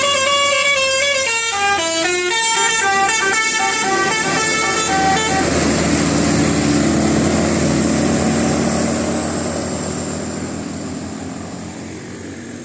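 Bus's Basuri musical 'telolet' horn playing a tune: one note held for about a second, then a quick run of changing notes that stops about five seconds in. The bus's engine then carries on and fades away near the end.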